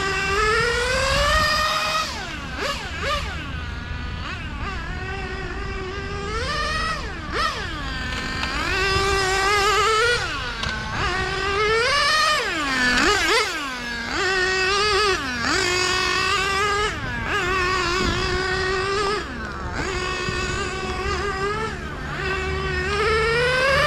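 Small .21 nitro engine (OS Max R21) of a Serpent 990 Viper 1/8 on-road RC car lapping a track, its high-pitched whine rising and falling over and over as it accelerates and brakes through the corners. It is running rich after its run-in, and the two-speed gearbox is not shifting up.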